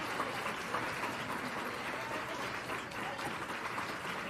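Audience applauding: many hands clapping at a steady level.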